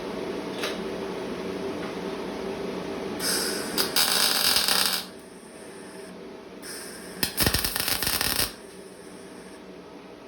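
Welding machine humming steadily, with two short bursts of crackling arc welding, each a second or two long, near the middle: tack welds on the steel stand.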